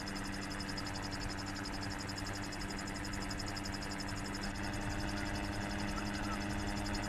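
Insects trilling in a fast, even, high-pitched pulse over a steady low hum.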